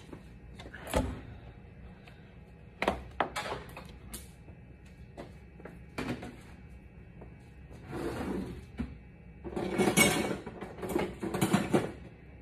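Kitchen handling sounds: a few sharp knocks and clunks, then a longer stretch of clattering and rustling near the end as things are moved about on the counter and stove.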